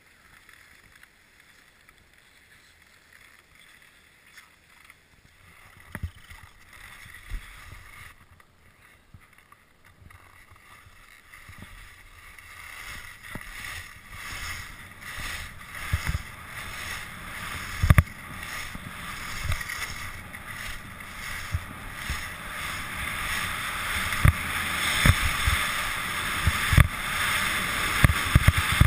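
Downhill skiing heard from a helmet-mounted camera: a rushing hiss of skis running over snow and air going past, which builds steadily as speed picks up from about twelve seconds in. Scattered short knocks from bumps break through it. The opening stretch is quiet.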